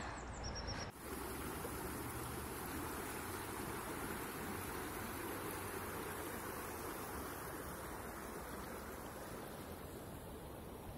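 Shallow stream running over stones: a steady rush of water starting about a second in and slowly growing fainter toward the end.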